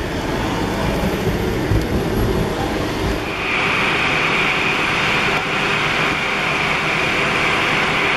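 Low rumble of a vehicle with rain, heard from inside it. About three seconds in this switches to a twin-engine widebody jet airliner taxiing, its engines giving a steady high whine.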